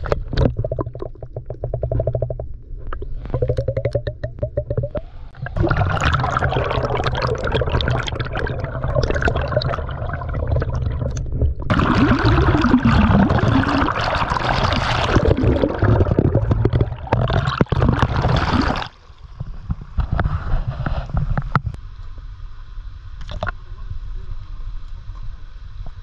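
Water sloshing and bubbling around a camera held under the surface of a pool, with crackles and bursts of bubbles, loudest through the middle, then quieter for the last several seconds.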